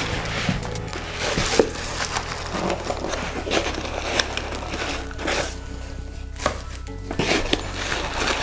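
Background music under handling noise: packaging crinkling and scattered light knocks and clicks as the parts of a smart door lock are picked up and set down.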